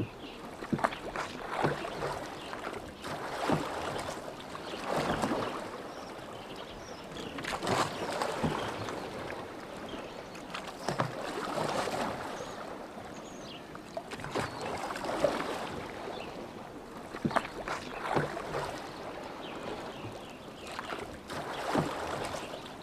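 Oars dipping and splashing in lake water as a rowboat is rowed, one stroke swelling up about every three to four seconds, with short sharp knocks among the strokes.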